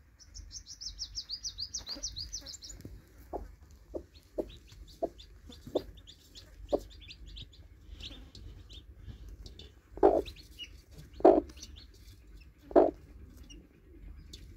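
Newly hatched chicks peeping: a quick run of high, falling chirps in the first few seconds, with fainter peeps later. A broody hen clucks low and short under them, with three louder clucks near the end.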